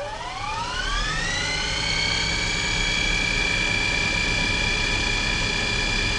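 A whine that climbs in pitch over about two seconds and then holds at a steady high pitch, over a low rumble, like an engine spooling up.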